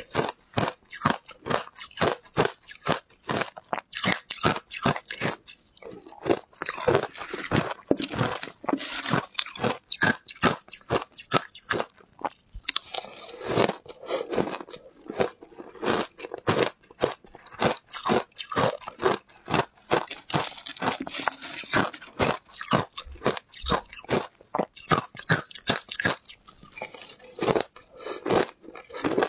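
Shaved ice crunching between the teeth as it is bitten and chewed, spoonful after spoonful: a rapid run of sharp, brittle crunches, several a second, with only brief pauses.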